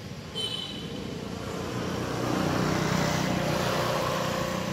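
A motor vehicle's engine going past, a steady low hum that grows louder to a peak about three seconds in and then fades a little.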